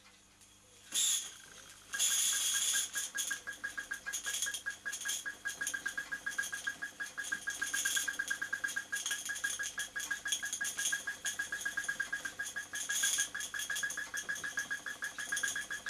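Miniature live-steam beam engine running: a quick, even beat of steam exhaust puffs and light mechanism ticks. A short hiss comes about a second in, and the steady beat sets in about two seconds in.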